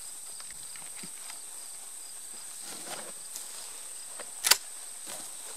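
A single shot from a Benelli Vinci 12-gauge semi-automatic shotgun, a sharp, very short report about four and a half seconds in, over a faint steady high-pitched hum.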